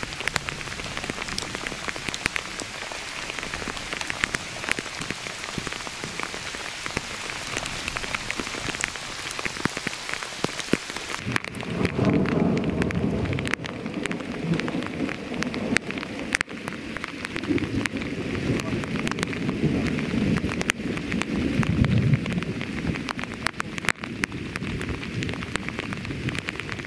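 Heavy downpour: a dense rain hiss with sharp ticks of drops striking close by. About eleven seconds in the hiss turns duller and a deep rumble of thunder swells and rolls on through the rest.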